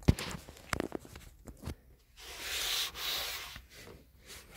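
Close rubbing noise with a few light clicks and taps in the first two seconds, then a hissing rub that swells twice in the middle.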